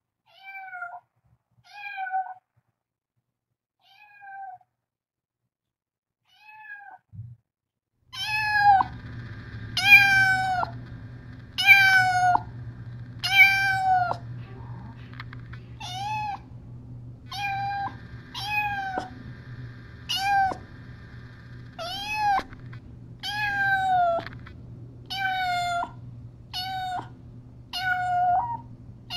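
A cat meowing over and over, short calls that each start with a falling pitch. They come faintly and sparsely at first, then much louder, about one a second, from about eight seconds in, over a low steady hum.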